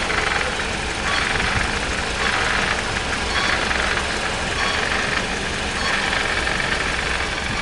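Peugeot 408 engine idling while the clutch pedal is worked, with the clutch squeaking in several stretches of about a second each.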